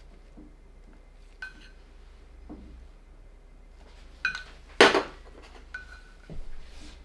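Tools and containers being handled and set down: a few light clinks, some with a short ring, the loudest clatter about five seconds in, and a dull knock near the end.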